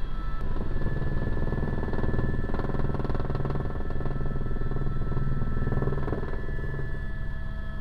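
Helicopter in flight heard from inside the cabin: a steady high turbine whine over the low rumble of the engine and rotor, easing slightly near the end.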